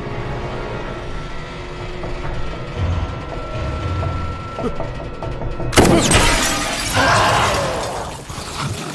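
Film soundtrack: a low rumbling drone with a thin steady high tone over it, then about six seconds in a sudden loud crash that rings on for about three seconds before fading.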